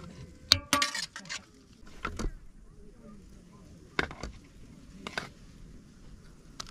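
Serving utensils and dishes clinking and knocking while food is dished onto plates: a quick cluster of clatter about a second in, then single knocks spaced a second or so apart.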